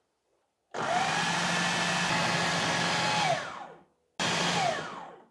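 Food processor motor starting up and running steadily for about two and a half seconds, then winding down, followed by a second short pulse that spins down. It is mixing flour, butter and water into shortcrust pastry dough.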